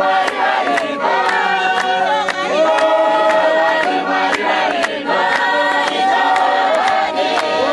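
A congregation singing a hymn together a cappella, many voices at once, over steady hand clapping.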